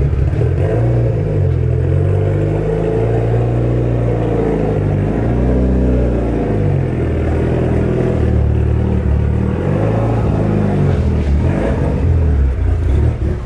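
Car engine running at a choppy idle, its pitch slowly rising and falling a few times.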